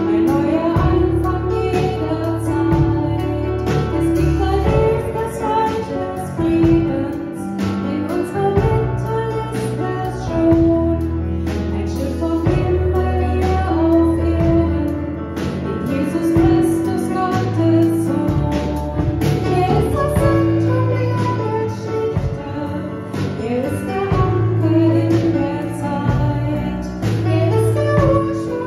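A woman sings a German worship song into a microphone, accompanied by a digital piano and a drum kit.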